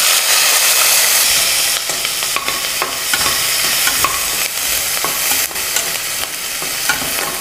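Sliced garlic sizzling in hot coconut oil in a steel pressure cooker pan, loudest as it goes in and then settling a little. A slotted metal spoon stirs it, clicking and scraping against the steel.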